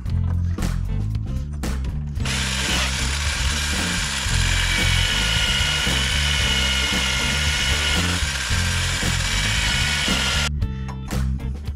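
Cordless power tool driving a socket, running steadily for about eight seconds from about two seconds in, as bolts are run in while the water pump is being fitted. Background music with a steady beat plays underneath.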